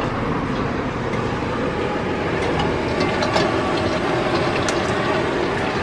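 Steady city street noise with a traffic-like rumble and a few faint clicks.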